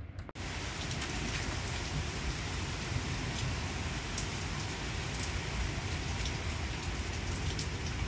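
Heavy rain falling steadily on a patio and lawn, a dense even hiss with a few sharper drip ticks, starting abruptly a moment in.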